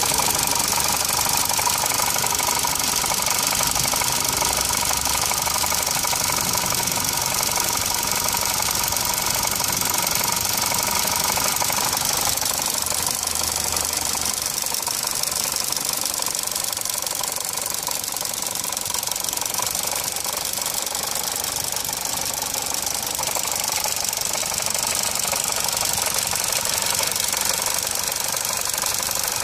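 Mitsubishi Lancer Evolution X's 4B11T turbocharged four-cylinder engine running with a steady, continuous rattle (karakara) from around the engine. It is an abnormal noise that dealer inspection and parts replacement have not cured.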